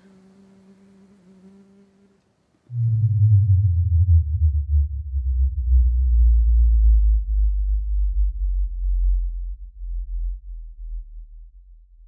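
A faint buzzing hum gives way, about two and a half seconds in, to a loud, deep low drone that slowly fades toward the end.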